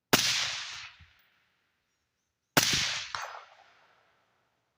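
Two suppressed rifle shots from a .223 carbine fitted with a Yankee Hill Machine Turbo T2 suppressor, about two and a half seconds apart, each a sharp crack followed by about a second of echo dying away; a third shot starts at the very end.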